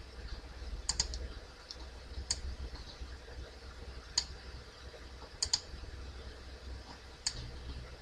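Computer mouse clicking now and then, single clicks and quick pairs a few seconds apart, as pen-tool anchor points are set, over a faint low hum.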